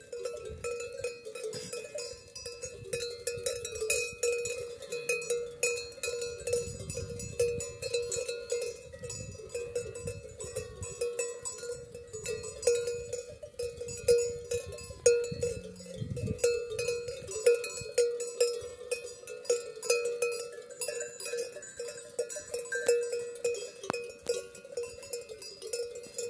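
Bells on a grazing flock of sheep and goats ringing and clanking without a break, many small bells sounding irregularly at once.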